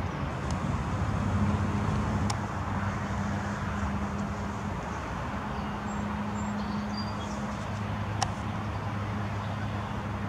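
Steady low drone of a distant engine over a noisy outdoor rumble, with faint high chirps and a sharp click about eight seconds in.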